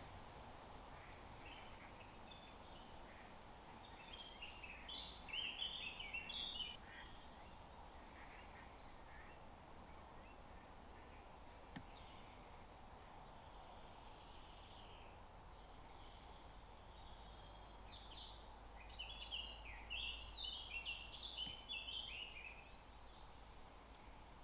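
A songbird singing two fast, twittering phrases, one about five seconds in and one near the end, over a faint steady outdoor hiss.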